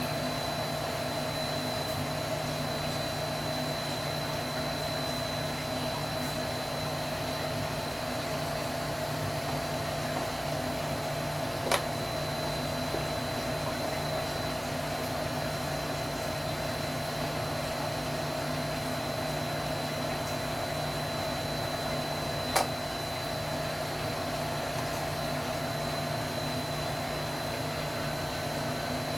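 Steady mechanical hum with a faint high whine, broken by two sharp clicks about eleven seconds apart.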